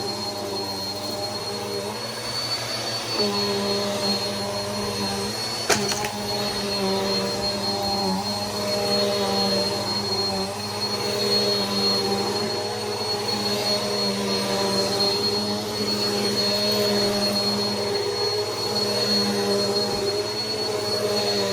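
Vacuum cleaner motor running steadily with a high whine. Its note shifts slightly about three seconds in, and there is one sharp click around six seconds in.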